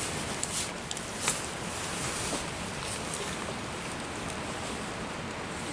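Steady noise of heavy rain and wind in a storm, with a few short sharp ticks and rustles over it, the loudest about a second in.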